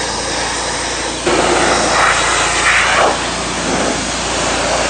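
Black Max pressure washer spraying a high-pressure water jet against house siding and window trim, a steady hiss that grows louder for about two seconds from just over a second in. The machine's motor hums steadily underneath.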